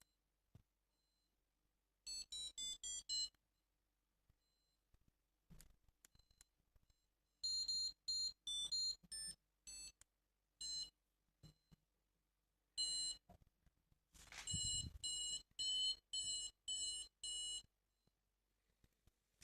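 FreeFly Vario variometer's beeper sounding runs of short, high-pitched electronic beeps, about three a second, in several bursts. The pitch shifts from beep to beep in the earlier runs and holds steady in the last run. A dull knock sounds about fourteen and a half seconds in.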